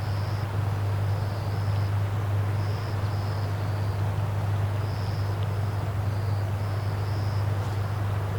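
A steady low engine drone with an even rush of noise over it, and short high chirps repeating irregularly on top.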